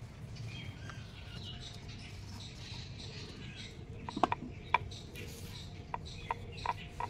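Wooden rolling pin knocking against a stone rolling board as dough is rolled out, short sharp clicks in an even rhythm of about two to three a second. The clicks start about four seconds in; before that there is only faint background hiss.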